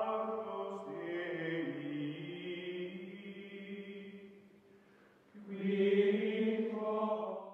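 Outro music of long held, chant-like sung tones that shift pitch, fade down about four and a half seconds in, then swell into a new held chord that cuts off abruptly at the end.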